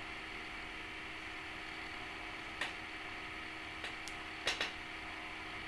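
Samosas deep-frying in hot oil in a kadhai: a steady sizzle, with a few short sharp crackles in the second half and a faint steady hum underneath.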